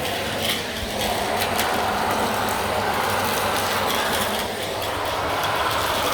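Dyson vacuum cleaner running steadily over carpet, with scattered small clicks and two brief changes in tone as the head is pushed and pulled.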